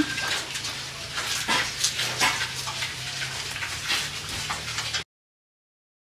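Piglets shuffling and snuffling about in a concrete pen, with scattered small knocks; the sound cuts off to silence about five seconds in.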